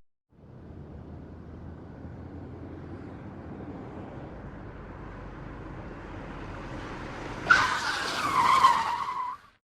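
A car's engine and road noise building steadily, then, about seven and a half seconds in, a loud tyre screech lasting about two seconds, its pitch dropping before it stops suddenly.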